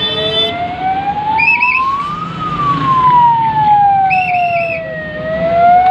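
Ambulance siren in a slow wail, rising and falling over about five seconds, with short warbling chirps sounding twice on top.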